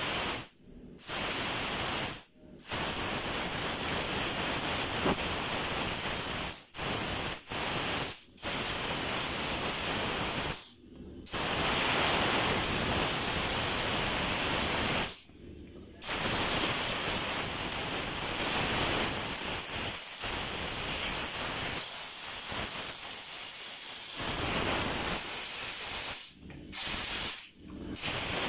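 Compressed air hissing from a tire changer's air inflation hose and gauge, inflating a tire. It blows in long bursts broken by about half a dozen brief pauses where the air is shut off.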